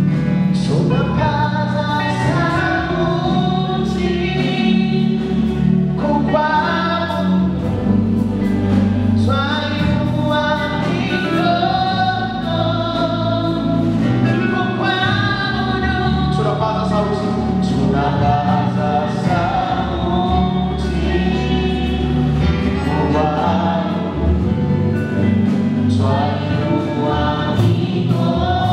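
Choir singing a gospel worship song together, with a band backing them on bass and other instruments.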